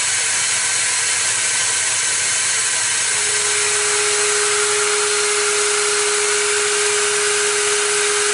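Hoover vacuum cleaner running steadily as dust extraction on a Stepcraft CNC machine. About three seconds in, a steady single tone joins it and holds, typical of the router spindle spinning up.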